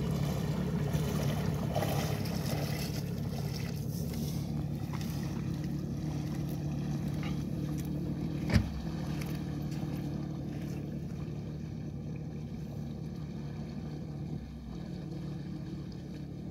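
Jet ski engine running steadily as the craft pulls away across the water, its hum slowly fading. One sharp knock about eight and a half seconds in.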